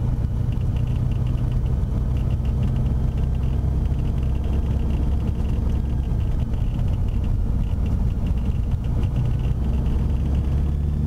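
Beechcraft Bonanza's single piston engine and propeller running steadily at low taxi power, heard from inside the cockpit. Right at the end the engine grows louder as takeoff power starts to come in.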